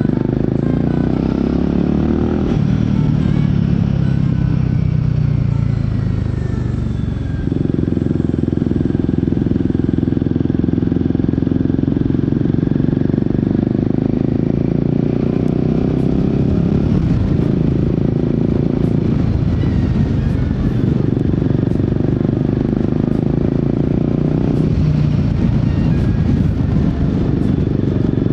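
Royal Enfield Guerrilla 450's single-cylinder engine and exhaust on the move. The revs fall for several seconds as the throttle rolls off, then pick up sharply about seven seconds in. After that it runs at a fairly steady pitch, with brief dips in revs a few times later on.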